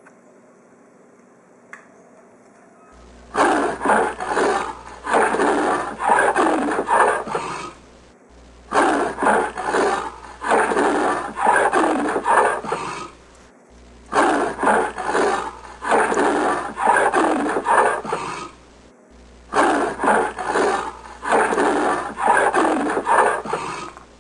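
Leopard call as a sound effect: a run of repeated big-cat strokes lasting about five seconds, played four times over with short gaps, starting about three seconds in.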